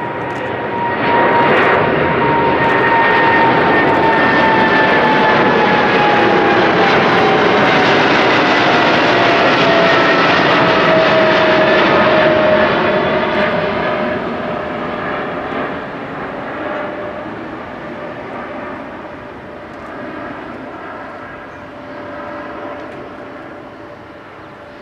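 Boeing 777-300ER's twin GE90-115B turbofans at climb-out power as the jet passes overhead. Loud jet noise carries a whine that slides down in pitch as the plane goes by, then the sound fades over the second half as it climbs away.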